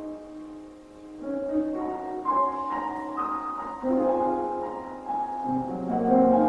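Piano playing slow, sustained chords; the sound dips about a second in, then new notes come in, with deeper bass notes joining near the end.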